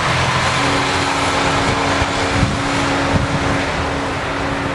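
Amtrak passenger train running down the line: a steady rushing noise, with a constant low hum joining it about half a second in.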